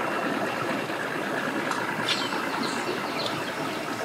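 Bass boat's outboard motor running steadily at low speed while the boat is manoeuvred at the dock.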